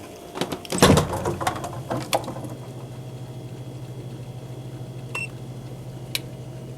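A few knocks and clatter of handling, then a steady low machine hum with a fast, even flutter sets in about a second in and keeps going. A short high beep sounds about five seconds in.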